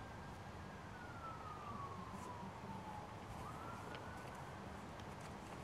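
Emergency-vehicle siren wailing: a single tone that holds high, slowly falls over about two seconds, sweeps back up about three and a half seconds in, then begins to fall again.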